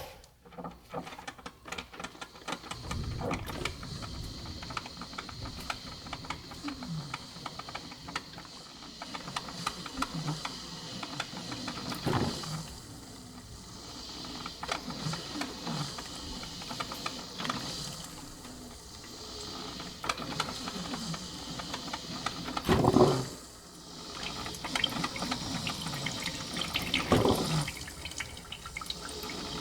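Coffee being poured and prepared: liquid running and filling a cup, with many small clinks and a few louder knocks from the cup and utensils.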